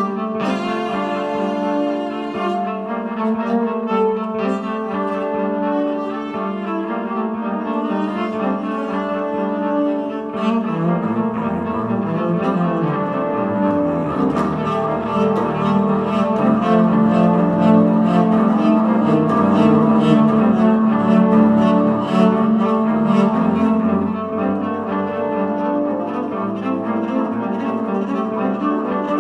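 Electric cello played with live looping: several sustained bowed cello lines layered over one another. A fast ticking rhythm joins about ten seconds in, and a lower bass part swells and gets louder through the middle.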